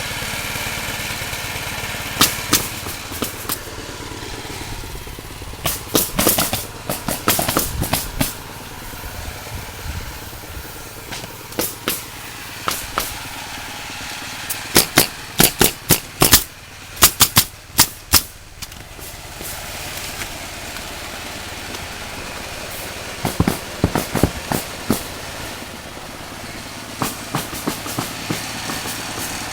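Pneumatic roofing nailer firing in quick runs of sharp shots, the fastest run about eight shots in three seconds about halfway through, as ridge cap shingles are nailed down, over a steady engine drone.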